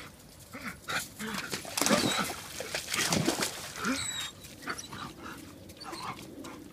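Belgian Malinois-type dogs giving a run of short, excited whines and yelps during ring-toy play, loudest about two to three seconds in.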